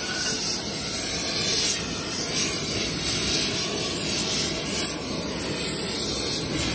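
Oxy-fuel gas torch flame burning with a steady rushing noise as it heats an aluminum bar to forging temperature.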